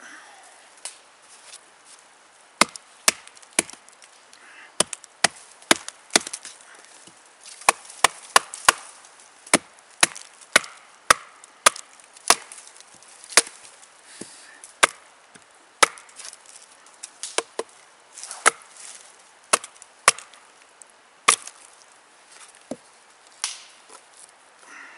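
Batoning: a wooden baton strikes the spine of a Bark River Sahara fixed-blade knife again and again, driving the blade down through a length of firewood to split it. A long run of sharp knocks, irregularly spaced about half a second to a second apart, starts a couple of seconds in and stops near the end.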